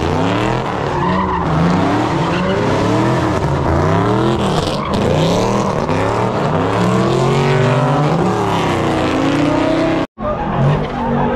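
A car engine revving up and down over and over while its tyres squeal, as in a drift or donut run. About ten seconds in the sound cuts out abruptly for a moment, then an engine note holds steadier.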